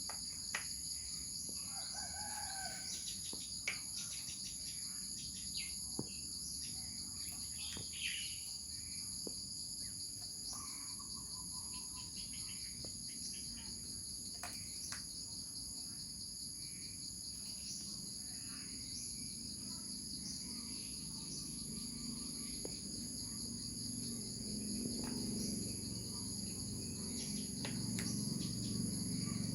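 Steady insect chorus, several high unbroken tones held throughout, with faint scattered clicks and short bird chirps; a low rumble builds over the last few seconds.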